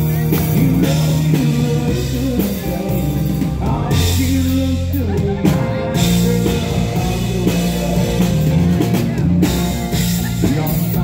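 Live country band playing loudly: drum kit, bass and acoustic guitar, with a male lead vocal.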